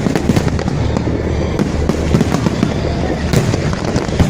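Fireworks display: many bangs in quick succession with crackling over a continuous low rumble.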